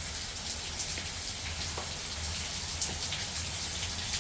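Rain shower falling steadily, with individual drops tapping close by and one sharper tap about three seconds in.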